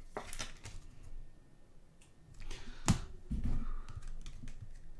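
Trading cards being handled and shuffled, with a few sharp clicks and rustles. The loudest click comes about three seconds in.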